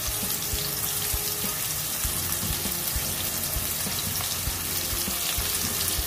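Sliced shallots sizzling in hot oil in a nonstick wok: a steady hiss with many small crackles and pops.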